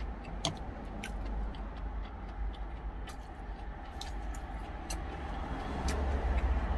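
Chewing with the mouth closed, with a few scattered short clicks and taps, over a steady low rumble of vehicle noise.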